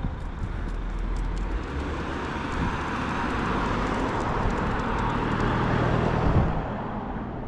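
A motor vehicle passing on the road: its engine and tyre noise build up over several seconds, are loudest about six seconds in, then fade away.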